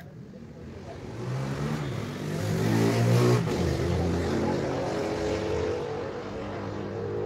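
A vehicle engine revving: its pitch and loudness climb for about two seconds, drop abruptly a little after three seconds in, and it then runs on more steadily, slowly fading.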